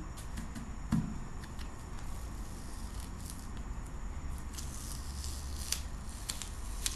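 Plastic tablecloth strips and blue painter's tape being handled and smoothed: light crinkling with scattered small clicks, and one soft knock about a second in.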